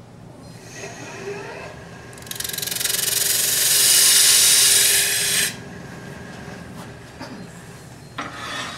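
Turning gouge cutting into a blank spinning on a wood lathe: a loud hissing cut of about three seconds that stops abruptly, with the lathe running steadily under it before and after.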